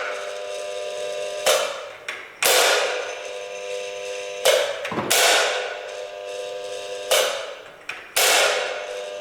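Stage curtain drop controller's clamps snapping open and shut, about six sharp metallic clacks a second or two apart, each followed by a fading metallic ring.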